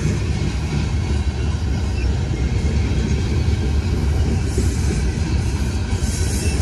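Freight train cars rolling past close by: a steady rumble of steel wheels on the rails, with a brighter hiss coming in over the second half.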